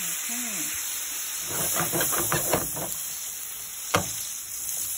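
Diced potatoes sizzling steadily as they fry in melted butter in a frying pan, with a single sharp knock about four seconds in.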